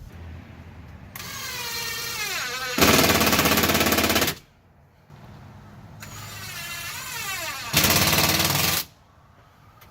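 Handheld power tool trimming drywall in two runs: each starts with a whine that shifts in pitch, then turns into a loud rough cutting noise, about three seconds in and again near the end.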